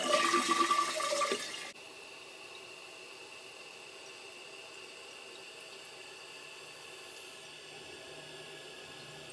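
Toilet flushing, a loud rush of water that cuts off sharply under two seconds in, followed by the tank refilling with a steady hiss. This is a test flush of a newly installed flush valve sealing with the old flapper.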